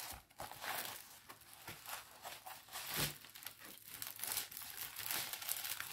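Clear plastic bags of a diamond painting kit crinkling and rustling as they are handled, irregular and fairly soft, with a few sharper crackles.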